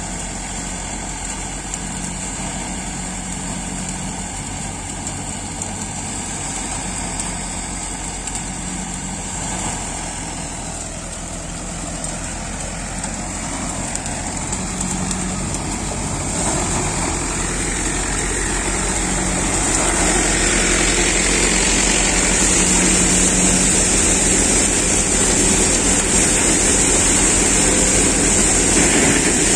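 Mahindra tractor engine running steadily under load, driving a Vardhman seven-fan 'missile' grain thresher, whose drum and fans run with a steady high-pitched hiss while it threshes. The machinery grows louder from about two-thirds of the way in as the microphone nears the thresher.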